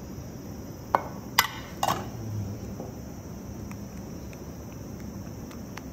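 Three sharp clinks of a stainless steel mixing bowl and spatula knocking together, close together about a second in, while cake batter is scraped out and poured.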